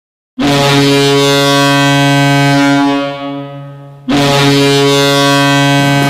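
Hockey arena goal horn with added reverb, sounding twice. The first blast is steady for about two and a half seconds, then dies away in a long echo. A second blast starts about four seconds in and is still sounding at the end.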